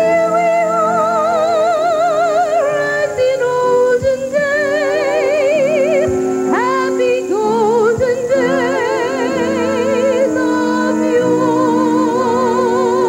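A woman singing solo with wide vibrato over instrumental accompaniment, holding long notes; about halfway through, her voice slides sharply up into a higher note.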